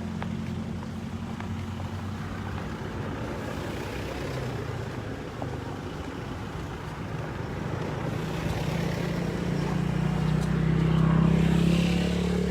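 Motor vehicle engine running with a steady hum, growing louder from about two-thirds of the way in and peaking near the end as it comes closer.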